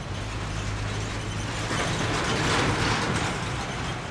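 Slow traffic passing close: a loaded light truck's engine running with a steady low hum, and a swell of road and mechanical rattling noise that builds and peaks about two and a half seconds in as vehicles and motorcycles go by.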